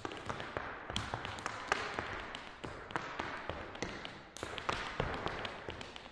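Irish dance hard shoes striking a hard floor: a quick, uneven run of sharp taps and clicks from the toes and heels, several a second.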